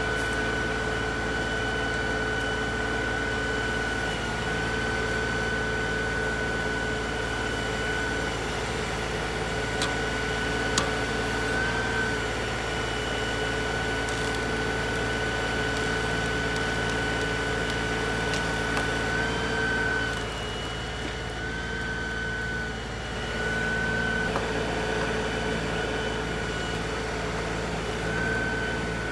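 LS XR3135 compact tractor's diesel engine running steadily under throttle, with a few brief small rises in engine speed and a slight drop in level about twenty seconds in.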